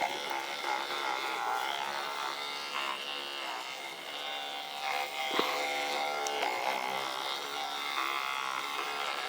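Thumper percussive massager running with a steady electric buzz, its pitch shifting now and then as it is pressed against the cat.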